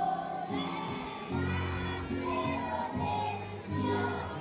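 Children's choir singing a song together, accompanied by an acoustic guitar.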